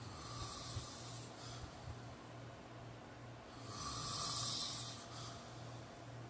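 A sleeping man snoring: two airy, hissing breaths, a softer one at the start and a louder, longer one about three and a half seconds in.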